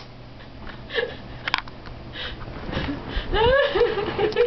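A woman laughing hysterically. Breathy, wheezy sounds for the first few seconds, with a sharp click about a second and a half in, then high-pitched laughter in rapid pulses from about three seconds in.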